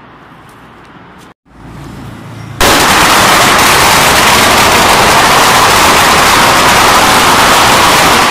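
A long string of red firecrackers going off as one dense, unbroken crackle of rapid bangs, very loud, starting suddenly about two and a half seconds in.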